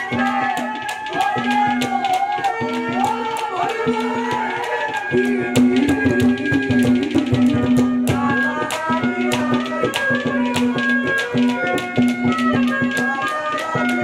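Live Haryanvi ragni accompaniment: seated hand drums keep a fast, even rhythm under held steady notes and a wavering melody line.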